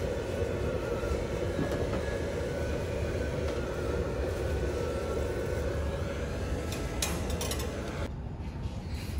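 A steady low rumble, like running machinery or ventilation, with a few sharp clicks about seven seconds in.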